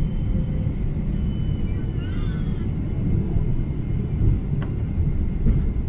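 Steady low rumble inside an airliner cabin as the plane rolls along the runway just after landing.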